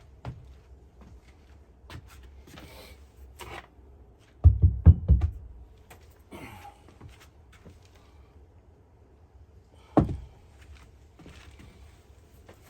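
Handling knocks from wooden subfloor boards in a small enclosed space. A quick run of several heavy, low thuds comes about four and a half seconds in and one sharp knock near ten seconds, with light clicks and rustling between.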